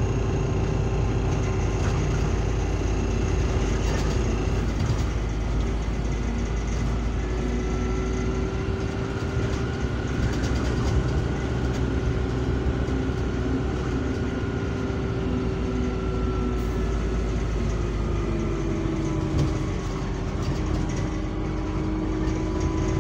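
London bus engine running, heard inside the passenger saloon: a steady low rumble with strong engine vibration and a humming tone that drifts slowly in pitch, falling and rising again near the end.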